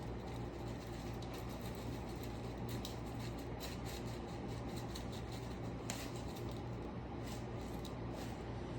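Chicken frying in a pan: a faint steady sizzle with scattered small pops and crackles over a constant low hum.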